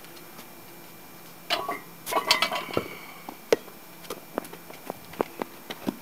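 Metal clinking and rattling as a loaded barbell and its iron plates are handled, followed by a run of scattered sharp clicks.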